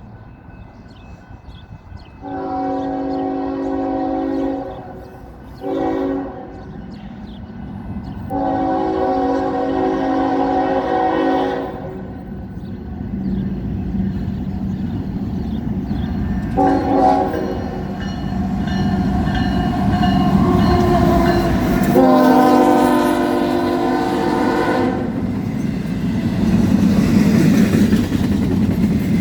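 Union Pacific freight locomotive's multi-note chord horn sounding five blasts: a long one, a short one, a long one, a short one and a final long one. Beneath it the train's rumble and wheels on the rails grow steadily louder as it approaches and passes.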